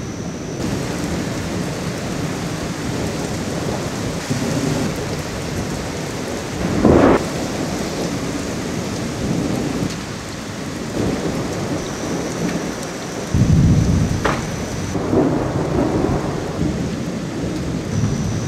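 Thunderstorm: steady rain falling with low rumbles of thunder, a short loud crack about seven seconds in, and a loud, deep boom of thunder about thirteen seconds in.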